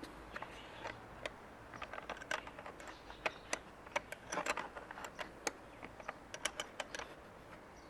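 Irregular small metallic clicks and taps of a spanner and lock nut being fitted to a motorcycle brake lever's pivot bolt, in bunches, busiest around the middle.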